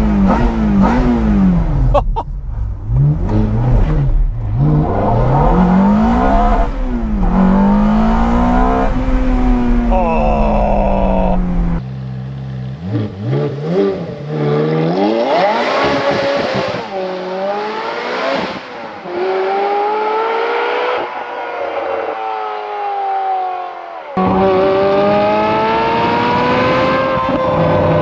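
Ferrari F430's 4.3-litre V8 through an aftermarket Fi Exhaust, accelerating hard. The pitch climbs and drops back several times. It is heard first from inside the car, then more quietly from beside the road as the car drives past, and near the end close to the tailpipes with a steadily climbing note.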